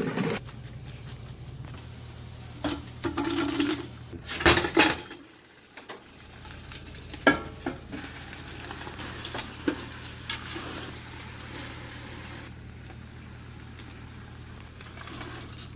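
Pots, pans and utensils clanking and knocking in a kitchen: a scattering of separate clanks, the loudest about four and a half seconds in, over a steady low hum.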